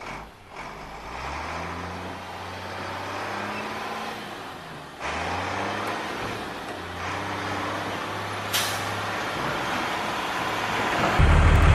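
Recorded truck engine sound, its pitch rising and falling as if revving and shifting, with a short sharp hiss like an air-brake release about eight and a half seconds in. A louder low drone sets in just before the end.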